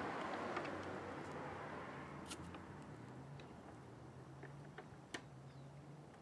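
Faint background noise that fades over the first two seconds, leaving a low steady hum and a few light clicks.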